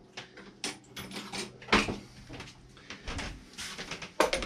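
Rummaging in a tool chest for a spark plug spanner: drawers and tools knocking and clattering, with a sharp knock about two seconds in and another near the end.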